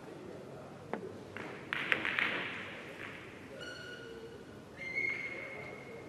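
A billiards shot: a single cue-tip strike about a second in, then a quick cluster of ball-on-ball clicks about two seconds in. Later come two short, steady high tones, the second held for over a second.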